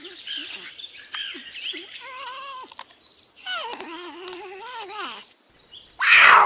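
A North American porcupine whining: a string of short, wavering, high-pitched cries, then two longer warbling calls in the second half. Near the end, a cougar's sudden loud hiss.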